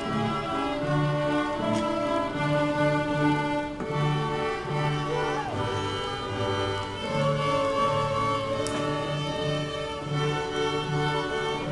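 A children's string ensemble of violins and cellos playing a piece together: bowed melody notes over a low line of short repeated notes.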